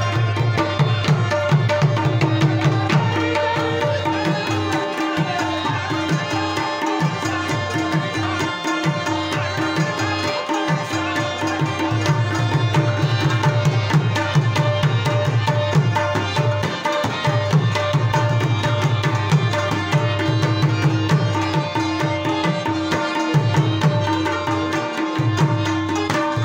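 Live instrumental music: a tabla played in a fast, dense rhythm, with a plucked rubab lute and a long held note over it.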